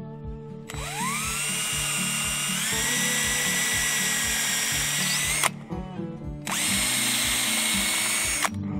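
Cordless drill boring into a wooden frame in two runs: its whine rises as it spins up, steps higher a couple of seconds in and cuts off suddenly, then runs again for about two seconds near the end. Background banjo music plays throughout.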